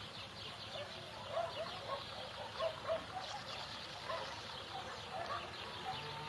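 Many birds calling at once: a dense chorus of short overlapping chirps and calls, a few of them louder about a second and a half and about three seconds in.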